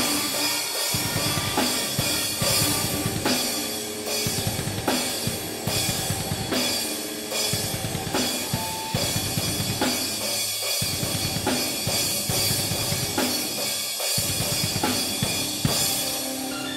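Acoustic drum kit played in a steady beat, with bass drum, snare and a constant wash of cymbals, stopping near the end.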